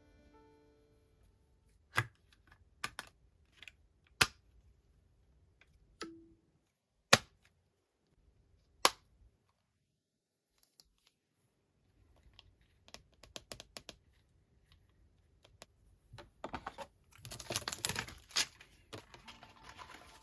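Hands handling packaging and a device on a tabletop during an unboxing: a handful of sharp separate clicks and taps, then rustling that swells into a louder crackling, crinkling near the end, like plastic film or paper being handled.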